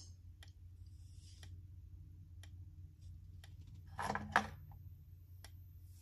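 Faint tick about once a second from the flashing strobe of an ESD Integrity Power Saver speaker strobe fire alarm, set off through the smoke detector with its speaker silent. About four seconds in there is a brief, louder rustle and knock as the alarm unit is handled.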